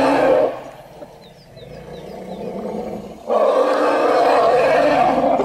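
A loud, drawn-out animal call that ends about half a second in, then another starting abruptly about three seconds in; faint high chirps can be heard in the gap between them.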